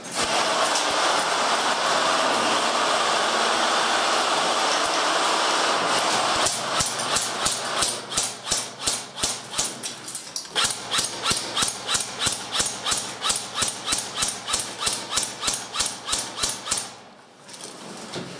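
Airsoft rifle firing a long string of single shots, sharp clicks at about four a second, that stops near the end. For the first six seconds a steady rushing noise.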